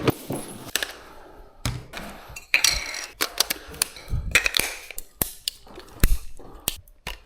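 Scattered clicks, taps and knocks at irregular intervals, with a few short spells of rustling noise.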